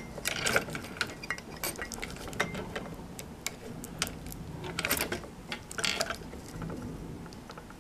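Hands handling the plastic parts and wiring of a disassembled roller-blind tubular motor: scattered small clicks, taps and rustles, with a few short bunches of clicking about half a second in and again around five and six seconds.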